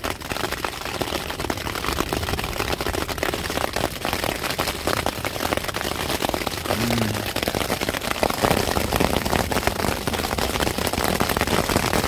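Heavy rain pattering on a tent, a dense crackle of drops that grows a little louder about eight seconds in.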